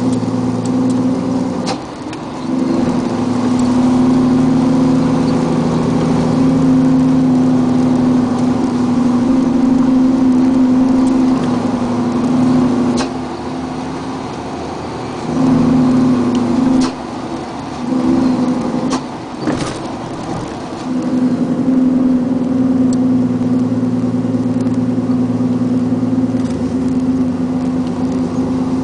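Vehicle engine running at a steady pitch, heard from inside the cab while driving. It eases off a few times (about two seconds in, around the middle and again a little later) and then pulls steadily again.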